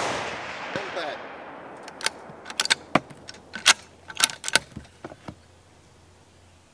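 The report of a .308 bolt-action rifle shot, a Springfield 2020 Redline, dies away, then its bolt is worked by hand: a quick run of metallic clicks and clacks between about two and five seconds in, ejecting the spent case and chambering the next round.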